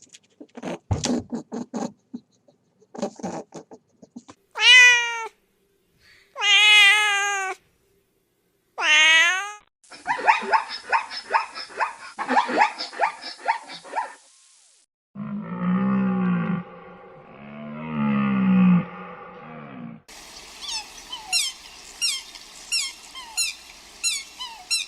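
A cat meowing three times, each a long call bending in pitch, in the middle of a run of different animal sounds. It is followed by two lower, longer calls and then rapid high chirping near the end.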